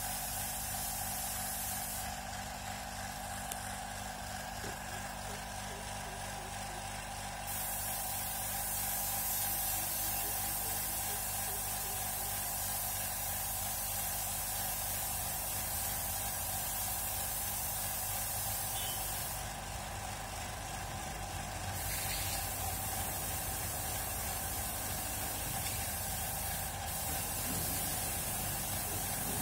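Compressed-air paint spray gun hissing steadily as it sprays paint onto a wall. The hiss dulls for a few seconds twice, about two seconds in and again around twenty seconds in.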